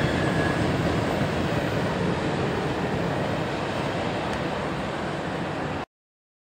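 Rear cars of a CSX mixed freight train rolling away on the track, a steady rumble of wheels on rail slowly fading. A high wheel squeal dies out in the first half second, and the sound cuts off suddenly near the end.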